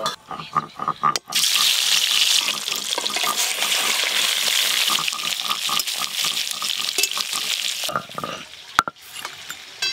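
Fish pieces slid into hot oil in a wok, sizzling loudly: the frying hiss starts suddenly about a second in and runs for about six seconds. A few clinks come before it, and there is a single sharp knock near the end.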